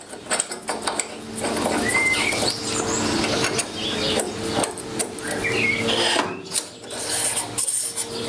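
Metal rubbing and scraping with small clicks as an ER32 collet and its nut are fitted to the collet chuck and an 8 mm ground steel bar is slid into the collet by hand.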